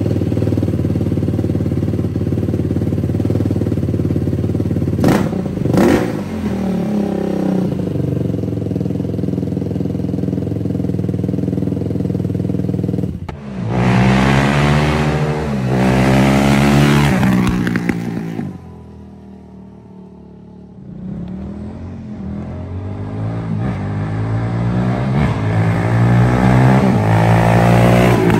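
2013 Yamaha YFZ450 quad's single-cylinder four-stroke engine idling steadily, revved briefly about five seconds in. About halfway through, the quad accelerates hard through the gears, its revs climbing and dropping at each shift, fades to a quieter drone, then climbs through the revs again as it comes back.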